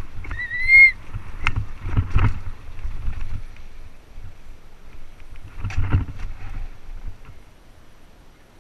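Mountain bike rolling down a rocky dirt singletrack, the tyres rumbling, with sharp knocks from bumps about two seconds in and again about six seconds in. Near the start a brief high brake squeal rises slightly in pitch.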